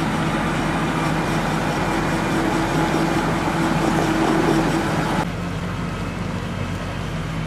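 Tractor diesel engine running steadily under load as it tows a heavy slurry tanker along a low-loader trailer. The level drops abruptly about five seconds in, and a quieter engine drone continues after that.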